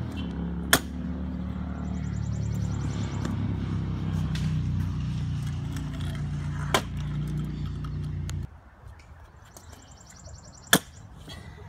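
Three sharp clacks, the loudest about ten seconds in, like a freestyle scooter landing on concrete, over a low steady hum that cuts off suddenly about eight seconds in.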